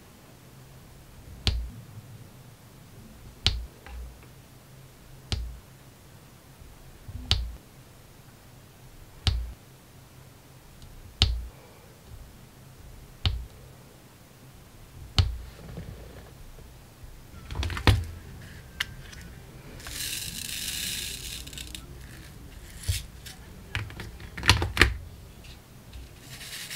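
Diamond painting pen applicator pressing resin drills onto the sticky canvas, one sharp click about every two seconds. Later comes a brief rattle of loose drills in a plastic tray, then a few quicker clicks.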